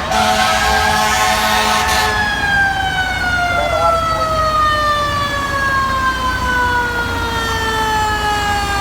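Fire truck siren winding up over the first two seconds, then slowly winding down for the rest of the time, with a rushing hiss during the wind-up.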